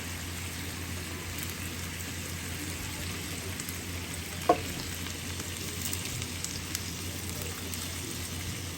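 Food sizzling steadily as it fries in a pan, with a single sharp click about halfway through.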